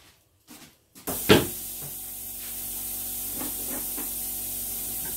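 About a second in, an air hose clicks onto a pneumatic stapler and compressed air starts hissing steadily out of it: the freshly reassembled tool is leaking air under pressure.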